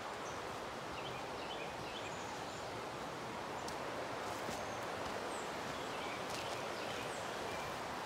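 Steady rushing of a river, with a few faint high chirps and light ticks of footsteps on a dirt trail.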